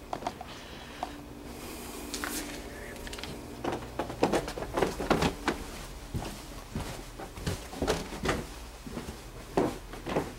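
Irregular knocks and clicks of interior doors being handled and footsteps in a small room, thickest from about four seconds in, with a faint steady hum for a couple of seconds near the start.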